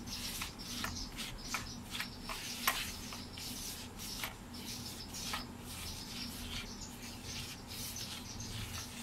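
Fingers stirring dry flour in a plastic bowl: irregular soft scratching and rubbing, with short squeaky scrapes against the plastic.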